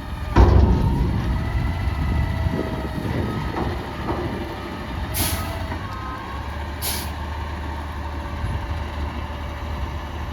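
Front-loader garbage truck, a Peterbilt 320 with a McNeilus Atlantic body, running, with a wavering whine over the engine. There is a loud knock about half a second in, and two short bursts of air hiss about five and seven seconds in.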